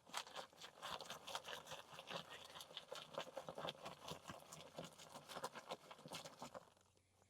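Wood ash being shaken through a hand sifter: a faint, rapid, irregular rattle of ticks and scratches that stops shortly before the end.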